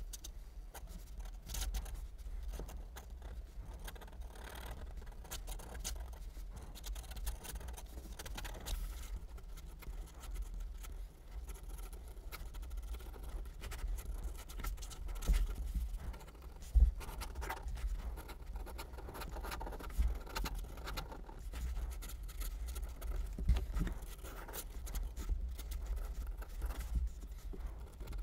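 Pen nib scratching across paper in quick, short sketching strokes, with a few sharper ticks along the way over a low steady hum.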